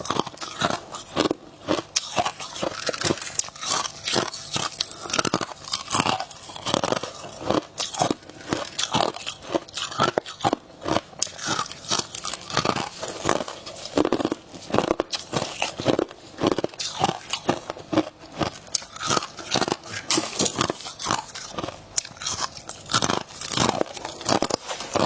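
Freezer frost being bitten and chewed close to the microphone: a steady run of crisp crunches, bite after bite.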